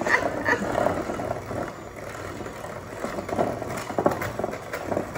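Electric hand mixer running, its beaters churning thick cookie dough in a glass bowl with a steady motor hum and irregular scraping and knocking against the bowl.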